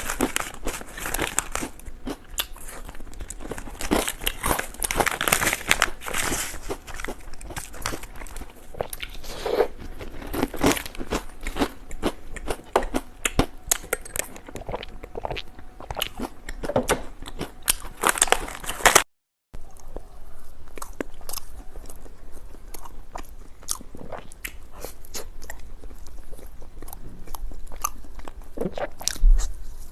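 Close-miked crunching and chewing of cucumber-flavoured potato chips: dense, irregular crisp cracks and mouth sounds. About 19 seconds in there is a brief cut to silence, after which lighter, quieter crunching goes on.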